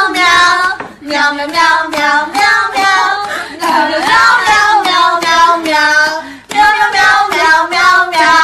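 A high-pitched voice singing a melody in phrases, with short breaks between them.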